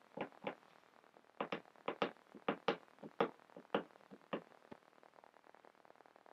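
Scratching and scraping at a stain, which feels like pine tar, on the fabric of a game-used baseball jersey: about a dozen quick, irregular strokes that stop a little under five seconds in.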